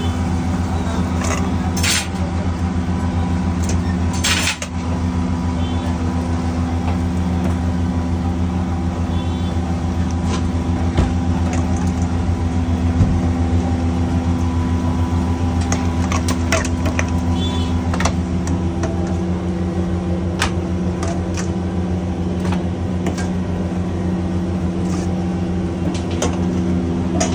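A steady low machine hum with scattered clinks of steel spoons and tongs against stainless-steel bowls and trays.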